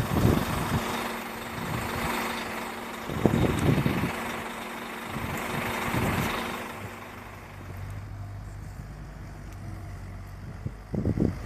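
Bobcat S175 skid-steer loader's diesel engine idling steadily, with a few short low rumbles on the microphone. About seven seconds in the engine sound grows fainter, leaving a low steady hum.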